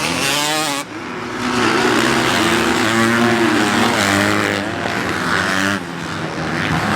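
Motocross dirt bike engine running hard on the throttle. Its pitch climbs and falls again and again, with a brief dip about a second in.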